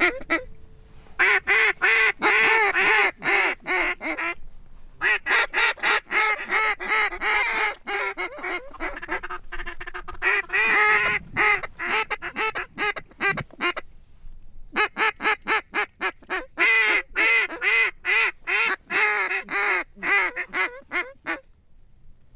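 Mallard duck call blown by a hunter: long runs of fast, loud quacks in several strings, broken by short pauses.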